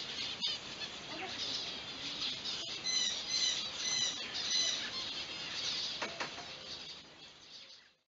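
Small birds chirping, with a quick run of short, high chirps about three seconds in; the sound fades out near the end.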